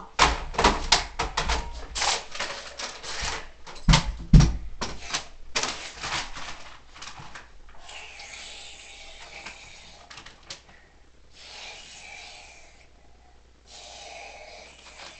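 Handling noises: a quick run of clicks and knocks for the first several seconds, then three spells of rustling.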